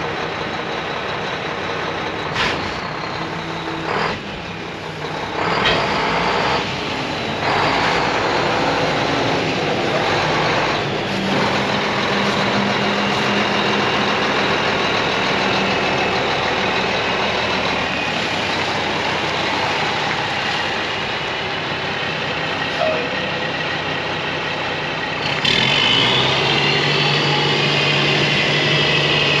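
Mack E7 inline-six diesel in a 2000 Mack CH613 tractor running as the truck moves through the yard, with a few short air hisses in the first six seconds. Near the end the engine's pitch rises and it gets louder as the truck accelerates away.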